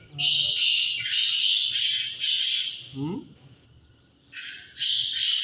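Birds squawking and chattering harshly in two long stretches, with a quiet gap about three to four seconds in.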